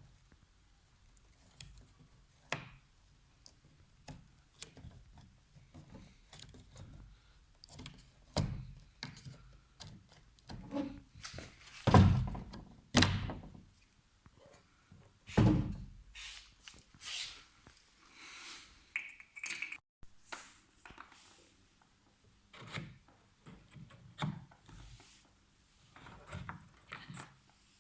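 Scattered clicks, knocks and thunks from a Peugeot 308 T9 car door's handle and its parts as they are worked loose and taken apart. The loudest few thunks fall about halfway through.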